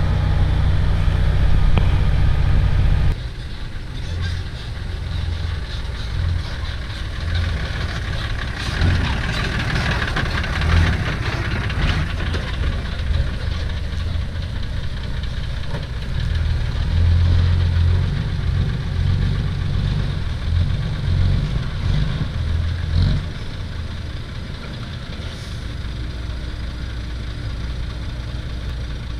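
Diesel engines of a dump truck and an excavator running: a low rumble, loudest for the first three seconds, then dropping abruptly and rising and falling after that.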